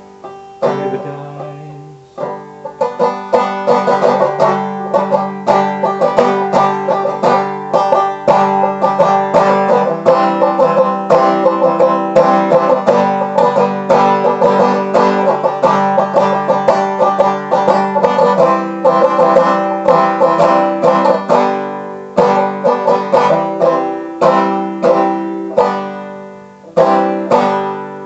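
Banjo picking an instrumental passage of a country-flavoured song: a few sparse plucked notes, then a few seconds in a busy run of rapid picked notes, thinning again to a few ringing notes near the end.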